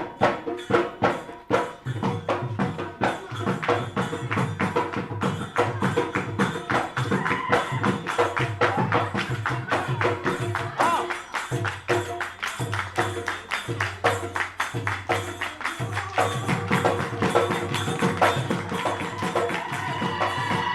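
Bihu dance music with a dhol drummed in a fast, steady beat, jingling percussion and a few held notes over it.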